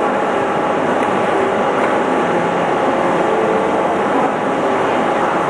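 Steady machine hum with several held tones, unchanging in level.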